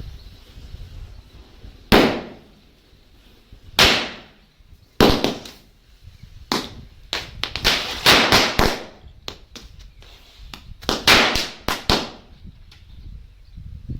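Bijli bomb firecrackers bursting one after another: more than a dozen sharp bangs at irregular intervals, some in quick clusters.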